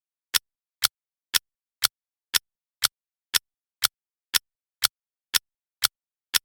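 Clock ticking steadily: a sharp, even tick twice a second, marking the timer's countdown.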